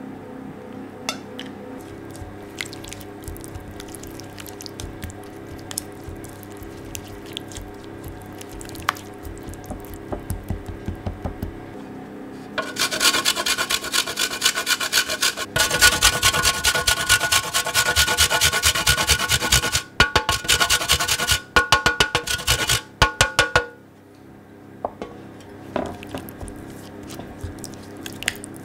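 Hard coconut cream being grated on a metal box grater: a fast, loud run of rasping strokes lasting about ten seconds in the middle, broken by a few short pauses. Before and after it, softer taps and scrapes of a silicone spatula against a glass bowl.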